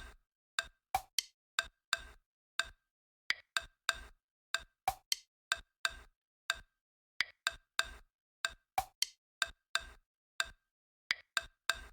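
A rhythmic pattern of short, sharp wood-block-like percussion clicks, about two to three a second, with dead silence between the hits.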